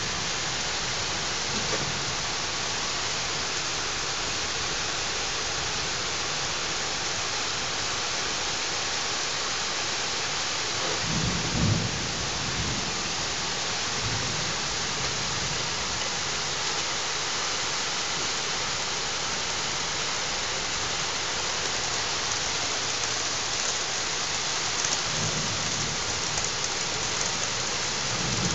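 Heavy thunderstorm rain falling steadily as a constant hiss. A low rumble of thunder swells about eleven seconds in, and fainter rumbles come near the end.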